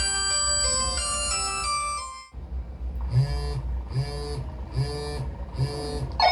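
Mobile phone ringtones played back through a Logitech Z906 speaker system. A melodic ringtone cuts off about two seconds in; after a short gap, a different ringtone sounds four identical short pulses, evenly spaced a little under a second apart.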